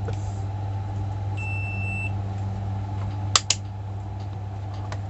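A single high electronic beep lasting under a second, over a steady low hum, followed by two sharp clicks in quick succession about three seconds in.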